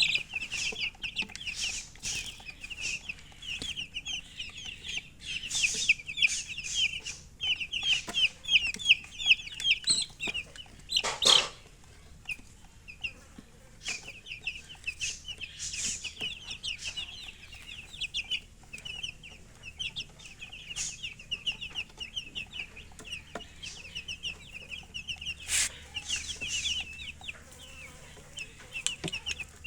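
Baby chicks peeping, many short high cheeps overlapping in a constant chatter that thins out briefly partway through. A short knock sounds about eleven seconds in and another near the end.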